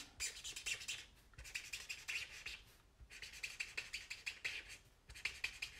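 Felt-tip alcohol marker rubbing over vellum in quick back-and-forth colouring strokes, in four runs with short pauses between them.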